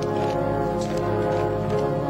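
Orchestral film score holding sustained chords, with a few faint knocks underneath.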